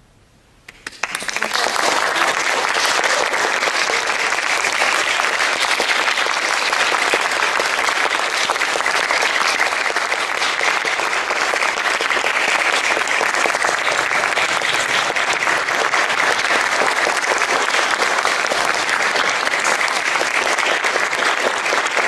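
Audience applauding, breaking out suddenly about a second in after a moment of quiet and then holding steady and dense.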